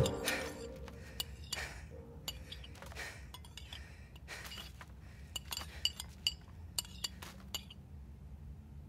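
Tableware being handled: dishes, glasses and cutlery clinking with a string of light, sharp clinks, most of them in the second half. Choral music fades out in the first second.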